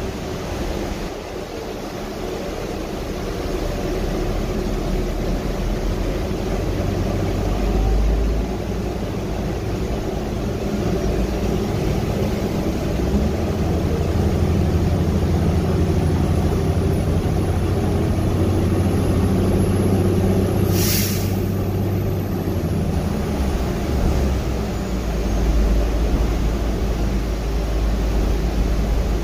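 Interior running noise of a Gillig trolley-replica hybrid transit bus under way: a steady low drone of drivetrain and road noise that builds through the middle, with a faint high whine rising and then falling away. About two-thirds through comes one brief, sharp hiss.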